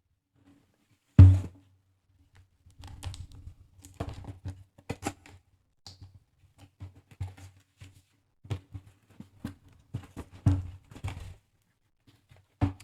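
A cardboard product box being opened and unpacked by hand: one sharp thump about a second in, then scattered knocks, clicks and rustling of packaging as items are lifted out.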